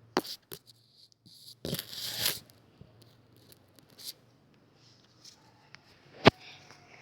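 Hands handling objects and packaging: a couple of sharp clicks at the start, a rustling, tearing sound about two seconds in, and one sharp click or knock near the end, the loudest sound here.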